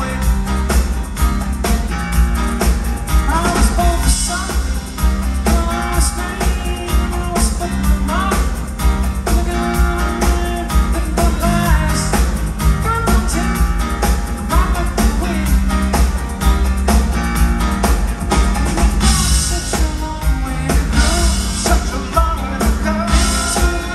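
Live rock band playing with electric guitars, keyboards and drum kit, a lead vocal singing over it.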